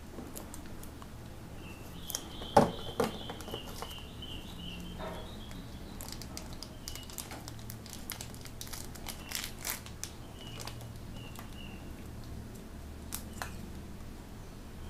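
Packaging crinkling and rustling as it is handled, with scattered clicks and a sharp knock about two and a half seconds in.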